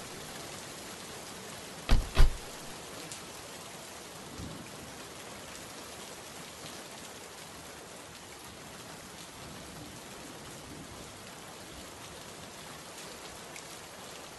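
Steady hiss of rain, with two car doors of a VW Vento shutting in quick succession about two seconds in.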